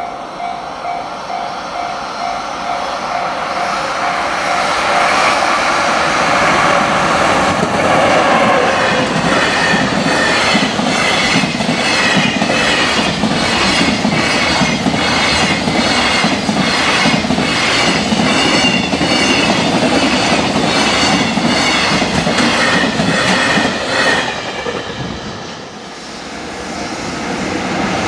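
Level-crossing warning bell ringing in quick repeated dings as a freight train approaches, then a long container freight train passing at speed: a rhythmic clatter of wheels over the rail joints, a little over one clack a second, over a heavy rumble with some wheel squeal. Near the end the sound drops away and rises again as another freight train draws near.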